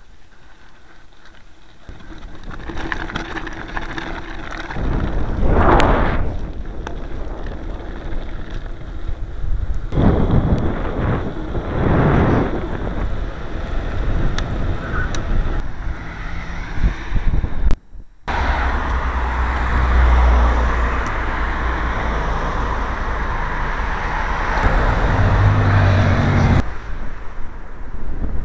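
Wind buffeting the microphone of a cap-mounted camera, surging in gusts and then blowing steadily, with a brief dropout just past the middle.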